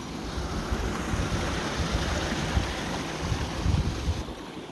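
A gust of wind rushing, with rumbling buffets of wind on the microphone; it builds over the first second or two and the rushing cuts off about four seconds in.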